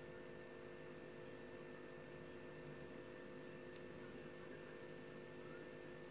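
Faint steady electrical hum over a soft hiss; no other sound stands out.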